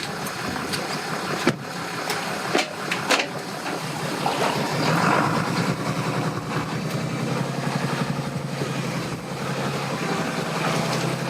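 An engine running steadily at low revs, starting to be heard about four seconds in. Wind rushes over the microphone throughout, and a few sharp knocks come in the first few seconds.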